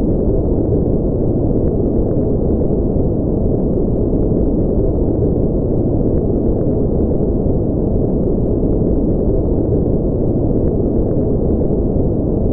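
Steady, unchanging synthetic noise for sleep, sold as white noise but deep and muffled, with its weight in the low end and almost nothing high.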